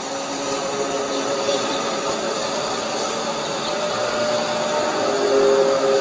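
A droning, mechanical-sounding 'strange sound' in the sky, of unknown origin: several long held tones over a rushing wash, swelling louder near the end. It is the kind of sound that some take for apocalyptic trumpets and others for alien craft.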